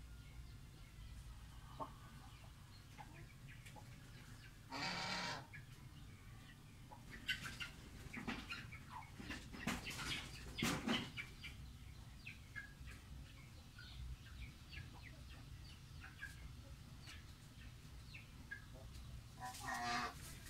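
Domestic poultry calling: a short call about five seconds in and another near the end, with scattered soft clucks or clicks in between, over a low steady hum.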